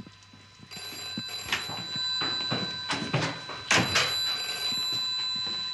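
Telephone bell ringing, starting about a second in and going on steadily, with a few sharp knocks mixed in.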